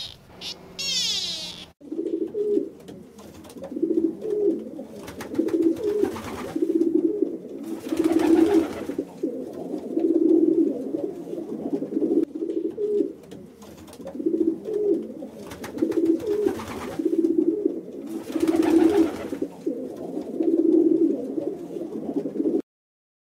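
Nicobar pigeon cooing: a long run of low, deep coos repeated about once a second. A brief high-pitched call comes in the first two seconds, before the cooing starts.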